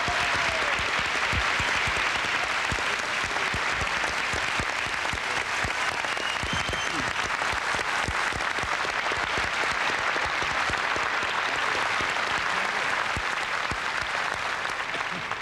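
Large audience applauding steadily, dying away right at the end.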